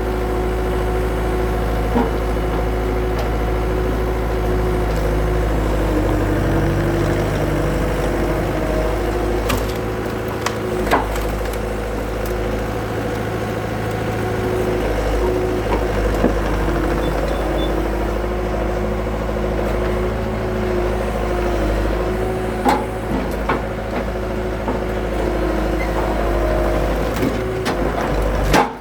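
Skid steer engine running steadily, with a few sharp knocks and cracks over it.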